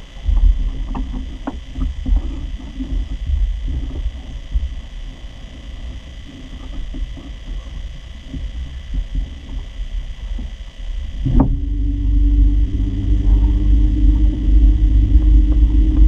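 Uneven low rumble with scattered light knocks, then, about eleven seconds in, an abrupt change to the louder, steady hum of a small canoe motor running.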